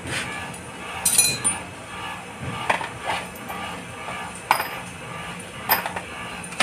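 Sharp metal clinks of a wrench and loose bolts being handled while the CVT cover bolts of a scooter are taken out, about five in all, the first, about a second in, ringing briefly. Background music plays underneath.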